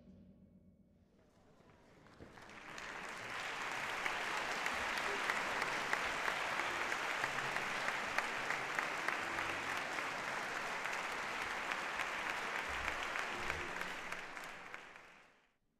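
Concert audience applauding, swelling in about two seconds in, holding steady, and fading out near the end.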